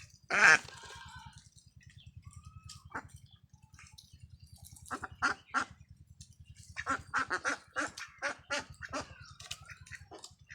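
Khaki Campbell ducks quacking: one loud call right at the start, three calls a little after five seconds in, then a quick run of repeated quacks from about seven seconds on. A steady low pulsing hum runs underneath.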